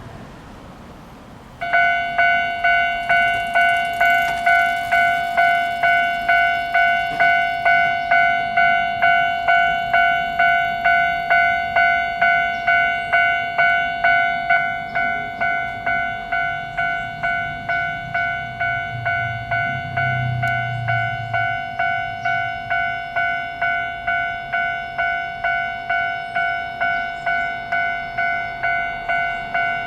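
Japanese railway level-crossing alarm starting up about a second and a half in, then ringing in a quick, even rhythm of electronic bell strokes, a little quieter from about halfway through. A low rumble swells briefly near two-thirds of the way.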